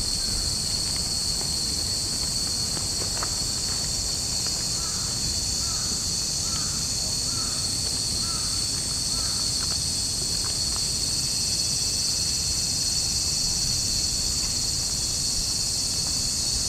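Cicadas droning steadily in the temple trees in midsummer. A bird calls a quick run of short notes in the middle, over a low background rumble.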